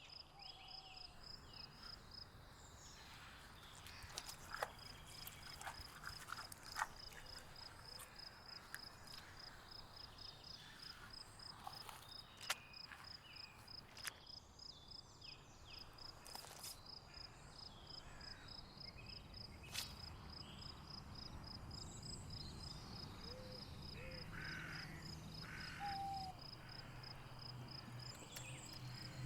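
Faint outdoor nature ambience: an insect chirps steadily in a high, even pulse about four times a second, with scattered sharp clicks and snaps and a few short calls. A low hum builds in the last few seconds.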